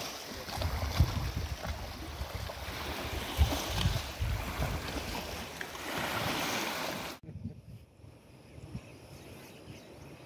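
Wind buffeting the microphone with a steady rush of flood-swollen river water along the bank, in uneven low gusts. About seven seconds in it cuts off suddenly to a much quieter, faint outdoor background.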